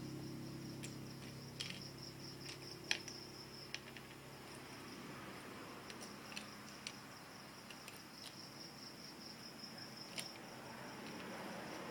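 A cricket trilling steadily in the background, with scattered small plastic clicks of Lego bricks being handled.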